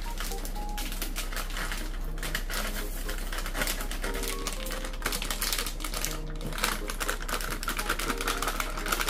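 Dry seasoning and flake packets being shaken out into an instant-noodle tray: a dense run of rapid, dry ticking and packet rustle that goes on steadily and grows a little busier in the second half.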